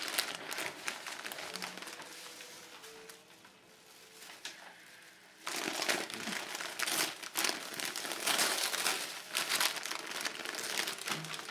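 Wrapping paper crinkling and rustling as a Christmas present is unwrapped; it dies down for a couple of seconds, then loud crinkling starts up again suddenly about halfway through.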